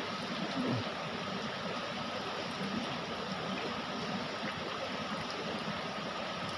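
Steady rushing of flowing river water, an even noise with no distinct splashes or knocks.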